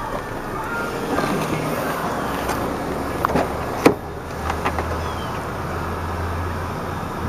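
Handling noise and outdoor background, with one sharp clunk about four seconds in as the rear door of a 2002 Toyota Corolla is opened; a low steady hum follows.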